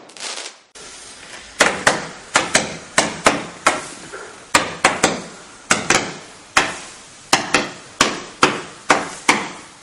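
Weco Firefighter firework cake firing shot after shot: sharp launch reports about two a second, each dying away quickly, starting about a second and a half in.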